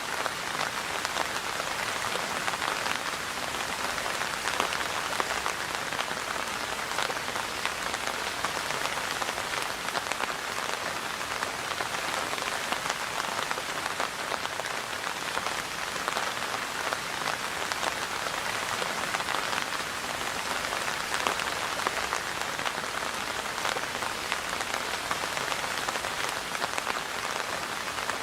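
Steady rain falling, a dense even patter of many raindrops striking a surface.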